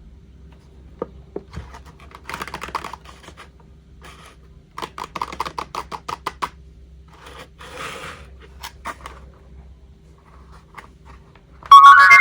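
Toy packaging being handled and opened, with scratching and two bursts of rapid clicking. Near the end a toy sing-along microphone suddenly starts playing a loud electronic jingle.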